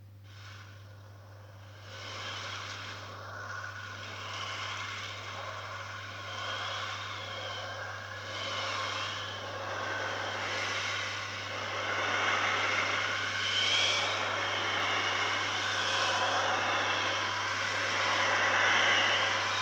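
Outdoor tornado warning siren heard from a distance, its wavering tone mixed with outdoor noise and growing steadily louder after the first couple of seconds.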